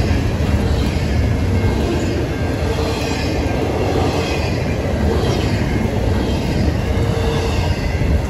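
Double-stack intermodal freight train rolling past close by: a steady, loud rumble and clatter of wheels on rail, with brief faint wheel squeals now and then.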